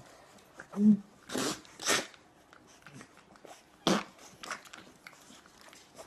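Puppies snuffling, licking and nibbling at a man's face close to the microphone: wet mouth clicks and smacks, two loud breathy puffs, and a short low grunt about a second in.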